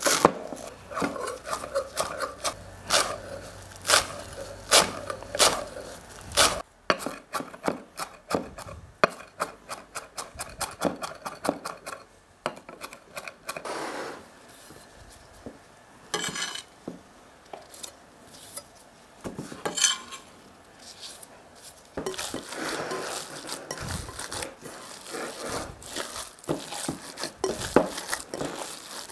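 Kitchen knife chopping fresh parsley on a wooden cutting board: a run of sharp knocks that speeds up into rapid chopping. Near the end, hands mix minced beef and pork in a glass bowl with a steady rustle.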